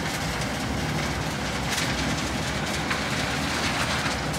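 Doppstadt SM-620-K Plus trommel screen running: a steady machine hum under a constant rattle and patter of sand and stones tumbling through the rotating drum and spilling off the conveyors.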